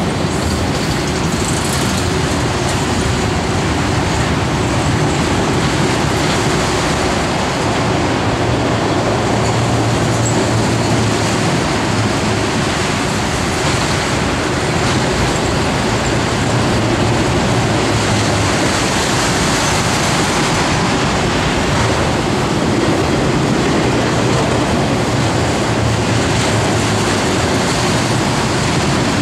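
Freight train of enclosed autorack cars rolling past, with a steady, unbroken noise of steel wheels on the rails.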